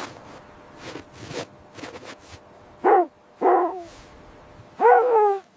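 An animal giving three short barking calls, each falling in pitch. The last, about five seconds in, is the longest and loudest.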